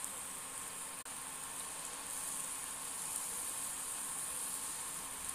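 Golgappa puris deep-frying in very hot oil in a kadhai: a steady sizzling hiss, with a momentary dropout about a second in.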